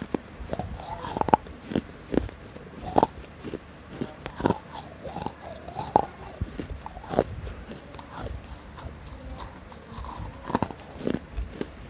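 Close-miked eating mouth sounds: biting and chewing, with many sharp, irregular wet clicks and crunches right at the microphone.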